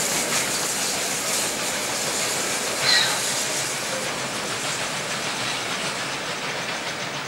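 Steam locomotives 3237 and 5917, a C32 class and a 59 class, pulling a train away, with a steady hiss of steam and rail noise. A brief high squeal about three seconds in is the loudest sound.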